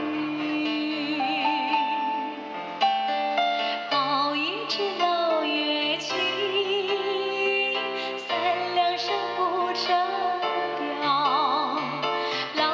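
A woman singing with vibrato, accompanying herself on a Korg electronic keyboard, amplified through a microphone and PA speaker.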